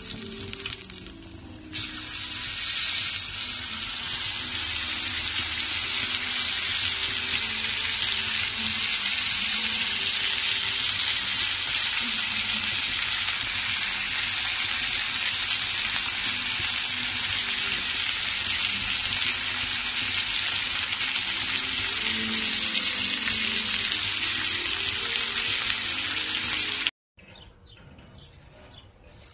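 Beef sizzling steadily on a hot salt block over a charcoal grill, a dense, even crackling hiss of fat and juices frying. It rises sharply about two seconds in and cuts off abruptly near the end.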